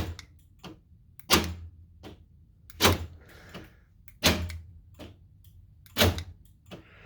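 Aftermarket universal power door lock actuator, temporarily wired into the truck's door, cycling lock and unlock. It gives a sharp clunk five times, about every second and a half.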